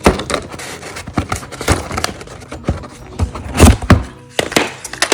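Packaging and small parts being handled and pulled out of a box: a string of knocks, thuds and rustles, the loudest thud about three and a half seconds in.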